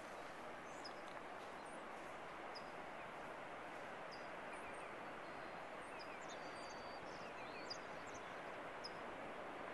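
Steady wash of distant surf breaking along the beach, with faint short bird chirps scattered throughout.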